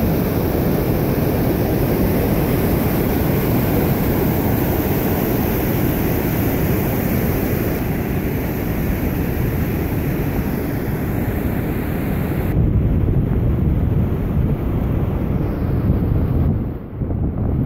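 Whitewater rapids of the Yellowstone River rushing in a steady, loud noise, mixed with wind on the microphone. About twelve seconds in the high hiss drops away abruptly, leaving a low rumble.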